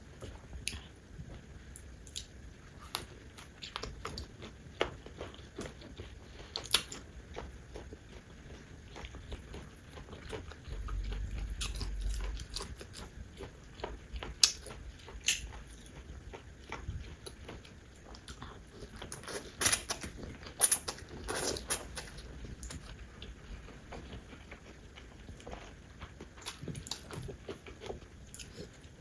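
Close-miked eating sounds: scattered wet chewing and biting clicks on and off throughout, with a low rumble lasting a second or so about eleven seconds in.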